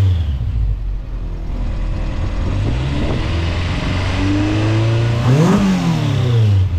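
B20 VTEC-swapped Honda Civic's inline-four idling, blipped twice: a small rev about halfway through and a bigger one near the end that rises and falls back to idle. The engine idles steadily after its throttle position sensor was recalibrated.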